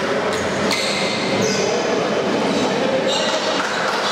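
Basketball game in a large hall: players' and spectators' voices echoing, with short high sneaker squeaks on the court and a couple of sharp knocks near the start.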